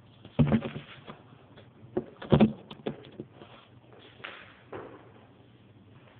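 Handling noise from a phone being gripped and swung about: irregular knocks and rubbing against the microphone, loudest about half a second in and again around two seconds in, over a low steady hum.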